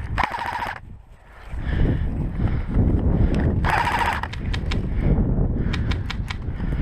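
Airsoft gun firing two short automatic bursts, each about half a second long and about three seconds apart, followed by a scatter of single shots near the end.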